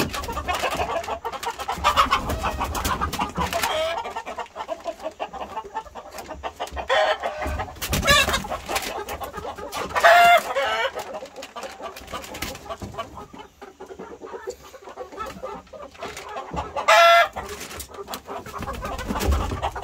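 Chickens clucking, with a short, loud call about ten seconds in and another about seventeen seconds in.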